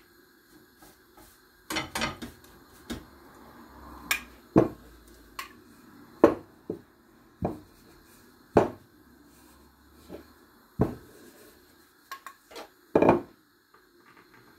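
Irregular knocks and clinks of kitchen utensils, a frying pan on a gas hob and a knife on the worktop: about fifteen sharp strikes, unevenly spaced, with quiet gaps between.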